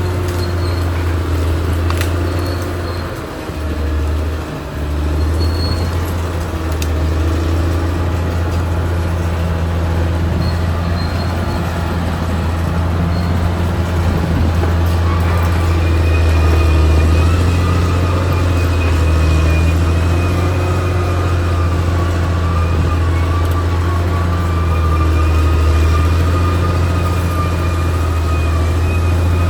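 Caterpillar D6R XL bulldozer's diesel engine running steadily as a deep drone, with a thin high whine riding over it. The level dips briefly a few seconds in, then holds.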